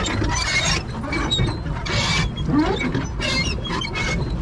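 Pedal boat's pedal crank and paddle-wheel mechanism squeaking and creaking in a steady repeating rhythm as it is pedalled, over a low rumble.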